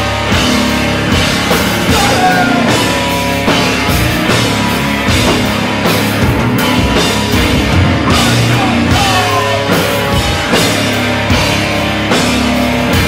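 Heavy rock band playing loud, live: distorted electric guitars, bass guitar and a drum kit hitting a steady beat.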